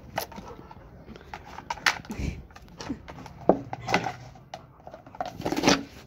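German shepherd puppy chewing and pawing at a hard plastic disc, which knocks and scrapes on a concrete floor in a string of irregular clatters, loudest about three and a half seconds in and near the end.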